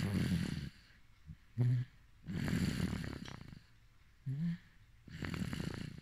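Rhythmic snoring in sleep: each breath has a short low snort followed by a longer raspy snore of about a second, repeating every two and a half to three seconds, with three rasps and two snorts here.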